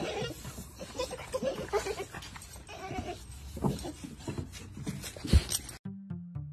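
Boxer dogs whining in many short cries, with a sharp knock about five seconds in. Background music takes over near the end.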